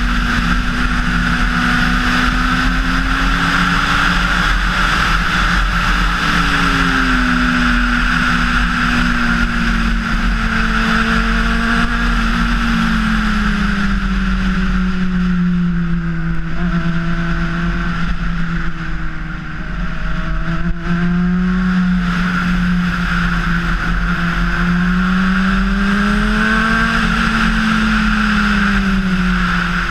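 Honda CBR600RR's inline-four engine running under way as the motorcycle cruises, its pitch sinking about halfway through, rising again near the end and then dropping back as the throttle is worked.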